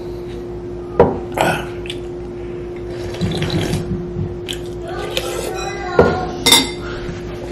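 Soup being slurped from a ceramic bowl, with a metal spoon clinking sharply against the bowl twice, about a second in and about six seconds in. A steady faint hum runs underneath.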